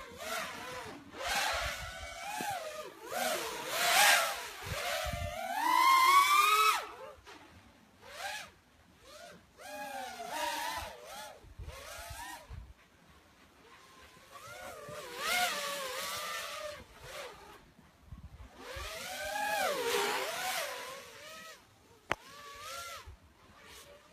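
FPV racing quadcopter's brushless motors and propellers whining, the pitch rising and falling over and over with the throttle, with gusts of wind and prop hiss at the loudest moments.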